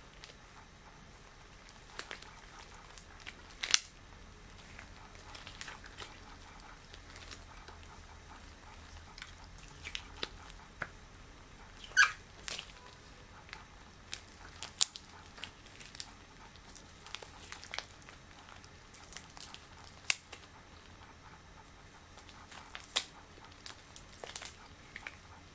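Extra-long latex gloves being worked on the hands: quiet rubbing and crinkling of the rubber with scattered sharp snaps.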